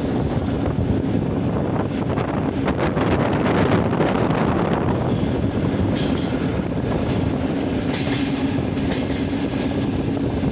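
Electric commuter train running at speed, heard from on board: a steady rumble of wheels on rail under a steady hum, with a few sharp clacks from the wheels on the track in the second half.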